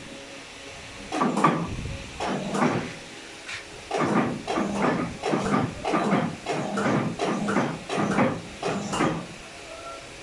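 A cloth rag rubbed back and forth on the ink rollers of a Heidelberg MO-S offset press during wash-up. A few separate swishing strokes come first, then a steady run of about two strokes a second for several seconds, stopping near the end.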